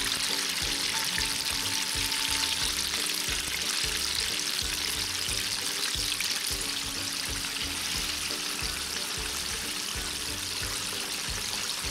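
Battered chicken drumsticks deep-frying in hot oil: a dense, steady sizzle and crackle of bubbling oil. Background music with a low, regular beat plays under it.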